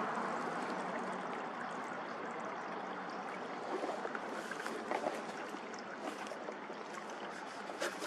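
Steady rush of running creek water, with a few faint clicks and rustles about four to five seconds in and again near the end.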